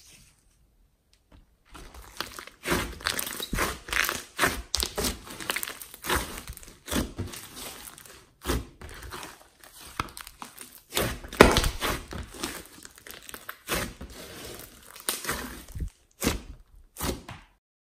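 Hands kneading and poking a thick, glossy slime mixed with clay and small beads, making irregular sticky squelches, pops and crackles. The sounds start about two seconds in and come in uneven bursts with short pauses.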